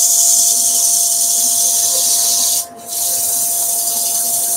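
100-grit abrasive paper hissing against a sycamore platter spinning on a wood lathe, hand sanding. The hiss breaks off briefly a little over halfway through, then resumes. A faint steady machine hum sits underneath.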